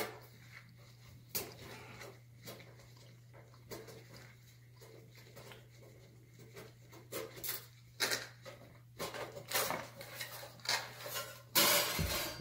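Handling noise from working on a shower panel's metal frame and fittings: scattered clicks, clinks and rubbing of metal and plastic parts, getting busier in the second half with a louder clatter near the end, over a steady low hum.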